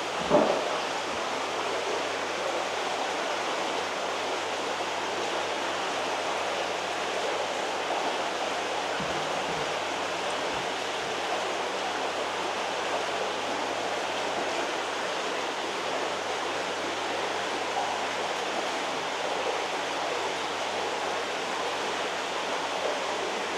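Steady rushing, splashing water from heavily aerated koi ponds and tanks, an even hiss with no let-up. A short louder burst comes about half a second in.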